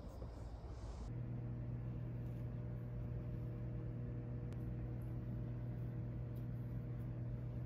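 Steady low mechanical hum, like a fan or appliance running, with a few faint higher steady tones. It sets in about a second in and holds unchanged, with a few faint ticks.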